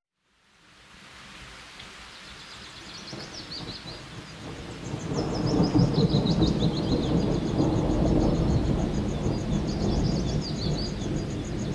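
Birds chirping over a steady low rumble that fades in and swells louder over the first half, with a fast repeated high chirp in the second half.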